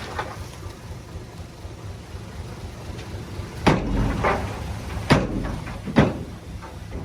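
Three sharp knocks, about a second apart in the second half, over a low steady machinery rumble.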